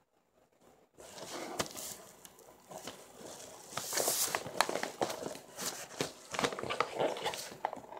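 Paper rustling and crinkling as hands dig into a brown paper mailing envelope and its pink wrapping paper, with many small crackles. It starts about a second in.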